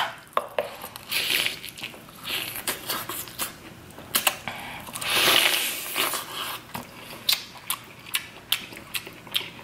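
Biting and chewing Cajun-butter corn on the cob close to the microphone: many sharp crunches and clicks, with a longer, louder burst about five seconds in.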